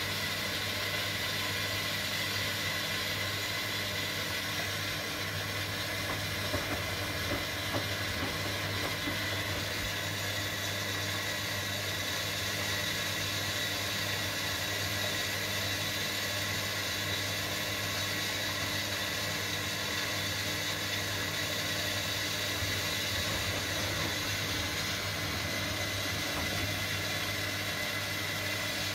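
Front-loading washing machine on its final rinse: the drum turning the wet shirts through the rinse water, with a steady motor hum and whine and a few faint ticks about six to eight seconds in.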